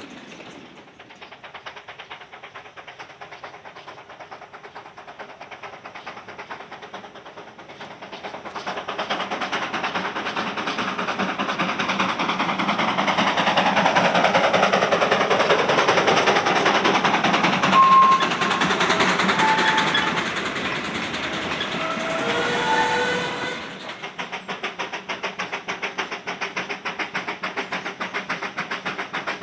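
Narrow gauge steam train running, with a rhythmic beat that builds up to a loud pass about halfway through. A few short high tones come near the peak. About three-quarters of the way in the sound changes abruptly to a quieter, steady rhythmic beat of a train running.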